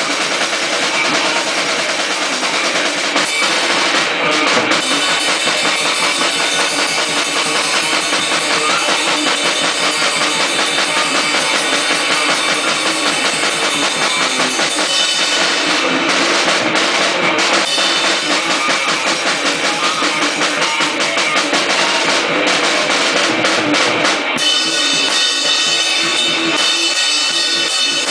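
Loud, dense death-grind noise music driven by very fast drumming with bass drum and snare, a continuous wall of sound. About three-quarters of the way through, the low end drops away and the sound turns thinner and higher.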